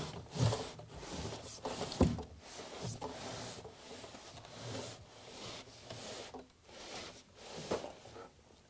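Ergometer machine on its wooden shipping platform being slid out of an opened cardboard box: irregular scraping and rubbing of wood on cardboard, with a sharp knock about two seconds in, dying away near the end.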